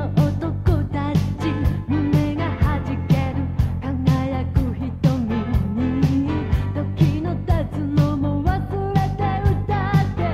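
Upbeat 1980s Japanese pop-rock song playing: a woman singing over a steady drum beat and band.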